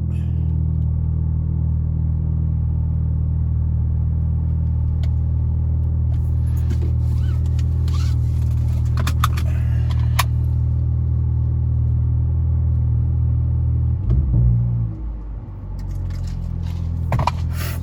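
Volkswagen Jetta MK7's engine idling with its resonator and muffler deleted, heard from inside the cabin with the windows closed: a steady low drone. About fourteen seconds in the note surges briefly, then dips and settles a little lower and quieter.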